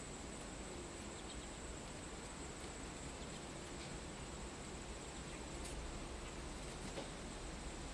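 Insects trilling with a steady high-pitched tone over a low background hiss, with a couple of faint ticks near the end.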